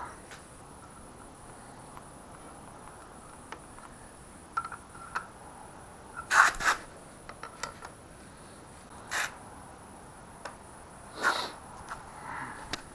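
Scattered clinks and scrapes of hand tools and metal engine parts being handled, a few seconds apart, the loudest about halfway through.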